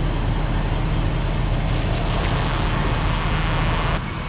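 A motor vehicle engine running with a steady low rumble, joined by a hiss that builds about two seconds in. The sound drops off abruptly near the end.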